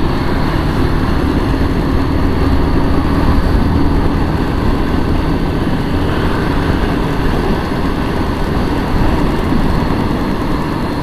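Motorcycle under way with its engine running steadily, together with road noise, picked up on the rider's own microphone.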